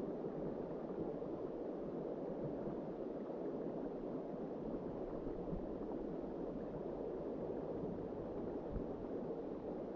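River current rushing steadily, an even, unbroken rush of moving water.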